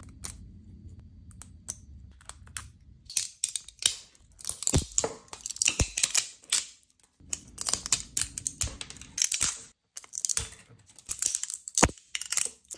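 Flush cutters snipping and prying support material off a 3D-printed plastic part: an irregular run of sharp plastic clicks, snaps and crackles as the supports break away.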